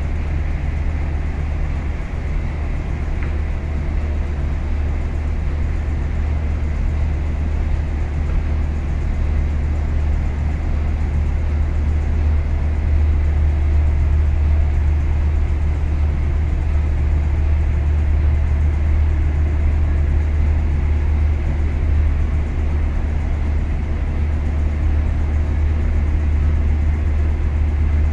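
Steady, deep machinery drone of a container ship's engine room, heard inside the engine control room.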